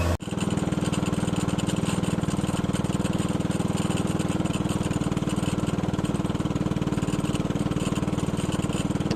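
Small engine running steadily at an even speed, with a fast, regular firing rhythm.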